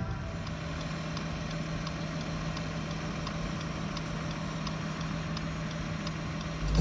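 Car engine idling, heard inside the cabin as a steady low hum, with a light regular ticking about three times a second.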